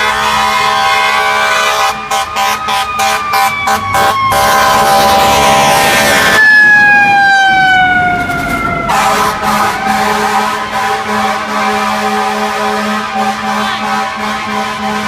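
Fire truck air horn blaring almost continuously, sounded in a quick string of short blasts about two seconds in. Under it, a wailing siren slides up at the start and falls slowly, and falls again mid-way while the horn pauses.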